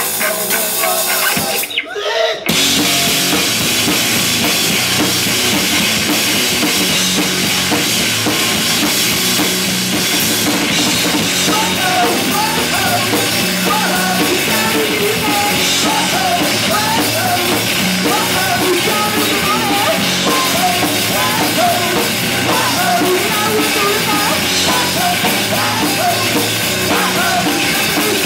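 Live rock band playing loud: a full drum kit driving the beat with electric guitar. The music drops out briefly about two seconds in, then carries on without a break.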